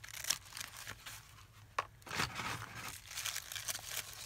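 Paper rustling and crinkling as note-paper sheets and a thin checkered paper sheet are handled, with a few light taps, one sharper near the middle.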